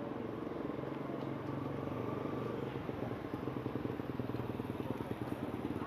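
Town traffic: a vehicle engine running steadily nearby, a low rough hum that rises and falls slightly.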